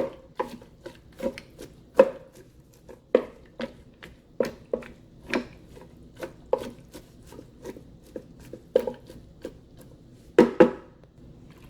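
A utensil knocking repeatedly against the Ninja Speedi's cooking pot as the pasta, kale, broth and milk are stirred: sharp irregular knocks about two a second, with two louder ones near the end.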